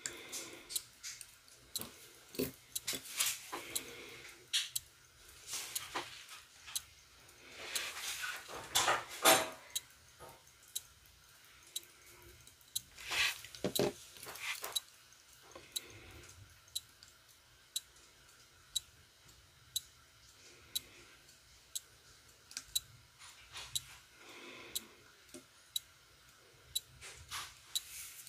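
Small clicks, taps and brief scrapes of fingers handling a jump-hour watch movement in a plastic movement holder, with a few louder rubbing noises about a third and half of the way through. A faint low hum runs underneath.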